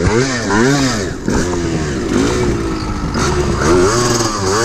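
Yamaha DT 125 two-stroke single-cylinder engine revving up and down in repeated throttle blips, its pitch rising and falling over and over.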